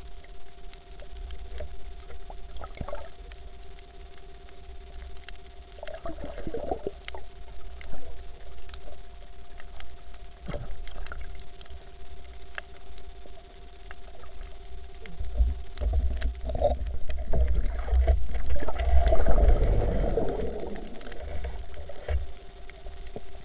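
Underwater sound picked up by a camera under water: a constant low rumble of moving water with scattered sharp clicks and a faint steady hum. There is a short bubbling gurgle about six seconds in and a longer, louder one from about sixteen to twenty-one seconds in.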